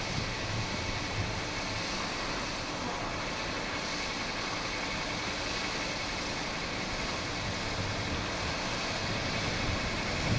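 Steady rumble of a distant approaching train, an X4 E-622 Siemens Vectron electric locomotive hauling a passenger train, growing slightly louder near the end.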